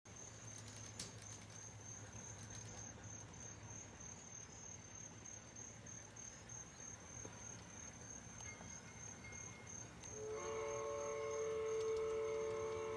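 A cricket chirps steadily in a high, even trill. About ten seconds in, the LGB Mogul's Soundtraxx Tsunami2 sound decoder starts a long blast of a Colorado & Southern three-chime steam whistle through the locomotive's speaker, several tones sounding together.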